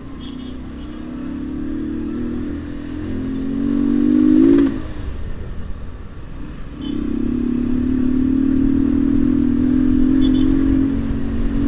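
Commuter motorcycle engine running as it is ridden through traffic. It rises in pitch and loudness as the bike accelerates about three to four seconds in, drops off suddenly just before five seconds, then pulls steadily again from about seven seconds.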